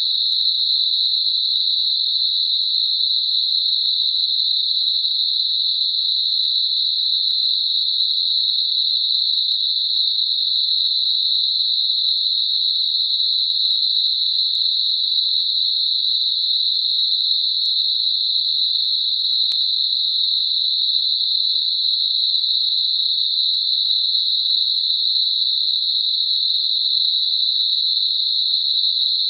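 Computer-generated Gaussian narrow-band noise centred on 4 kHz: a steady, even high-pitched hiss with no breaks, made as a masker for high-pitched tinnitus.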